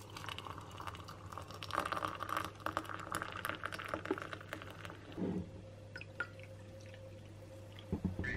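Hot water poured from an electric kettle into a ceramic mug onto a tea bag, splashing and trickling. The pour dies away after about five seconds, followed by a few light knocks.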